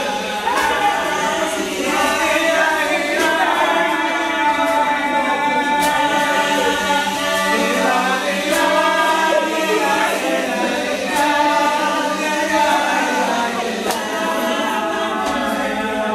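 A group of voices singing together unaccompanied in harmony, held notes moving in a steady repeating phrase.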